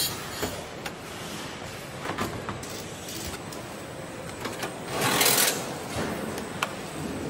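Factory assembly-line noise: a steady background din with scattered clicks and knocks of parts and tools, and a short burst of hiss about five seconds in.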